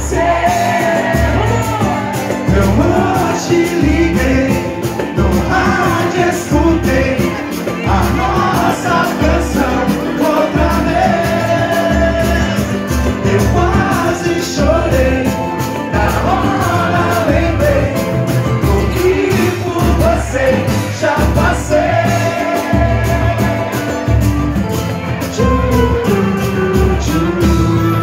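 Live band playing a song with singing over it: electronic keyboard, cavaquinho, pandeiro and acoustic guitar, over a steady low beat.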